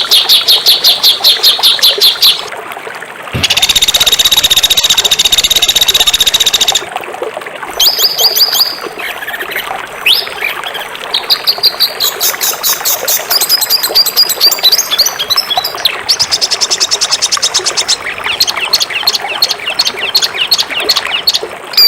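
Songbirds singing loud, rapid high-pitched chirps and trills, with the song type changing abruptly several times: a fast run of repeated notes, then a few seconds of a continuous buzzy trill, then varied chattering phrases with quick whistled notes.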